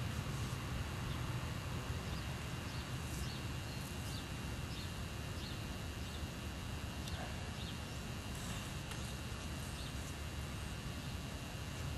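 Outdoor ambience: a steady low rumble with faint, short high chirps repeating about every half second, and a few light knocks.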